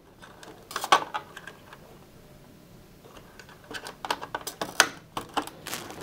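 Plastic clicks and rattles of a washing machine's control-board wiring connectors and loom being handled: a few sharp clicks about a second in, then a busier run of clicking in the second half.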